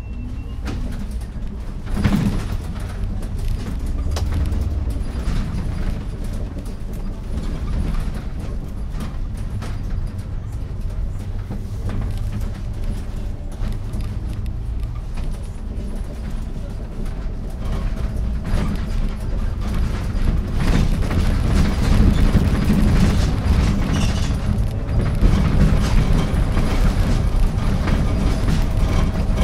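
Iveco Urbanway 12 CNG city bus under way, heard from on board: the low rumble of its natural-gas engine and the road, with many small rattles and knocks from the body and fittings. A sharp knock comes about two seconds in, and the rumble grows louder in the last third.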